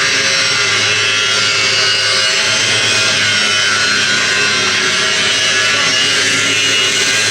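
Steady metalworking noise: a continuous loud hiss with a low hum underneath, without a break.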